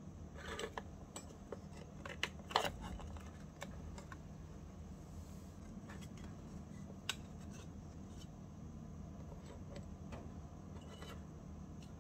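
Hands handling a miniature oven's thin metal-foil tray and a tiny plate: scattered small clicks, taps and crinkles, the sharpest cluster about two and a half seconds in, over a steady low hum.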